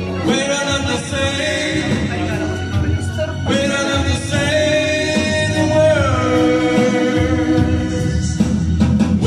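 A man singing into a microphone, amplified, over a recorded backing track, holding long notes with one held note stepping down to a lower one partway through.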